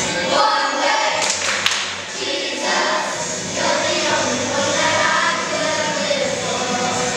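Children's choir singing a song together, with a few sharp taps about a second and a half in.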